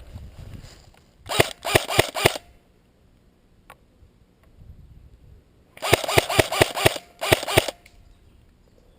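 Airsoft rifle firing three quick strings of shots, each a sharp crack: about four shots, then a longer string of about six, then two more.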